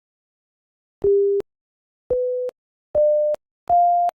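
Computer beep tones played by a C++ program: four short pure beeps, about a second apart, each a step higher in pitch as the frequency number in the code is raised. Each beep starts and stops with a click.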